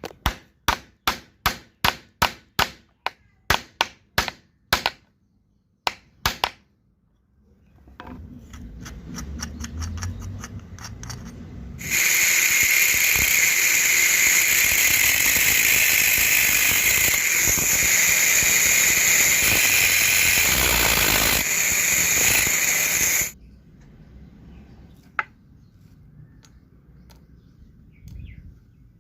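About a dozen sharp knocks, roughly two a second, then a power tool that spins up with a low rising hum and runs loudly and steadily for about eleven seconds before cutting off suddenly.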